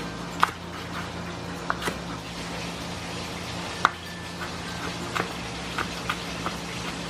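Chef's knife chopping leek and ginger on a wooden cutting board: irregular knocks of the blade on the board, two much louder than the rest, over a steady low hum.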